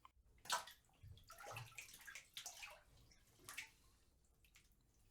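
Water sloshing and swishing in a filled bathtub in a few short moves, as a body settles into the bath.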